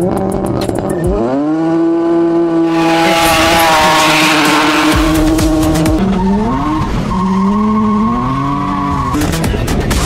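Turbocharged Mazda MX-3 engine revving hard during a drift. The revs climb about a second in and hold high while the tires spin and squeal with a loud hiss, then dip, rise again and fall off near the end.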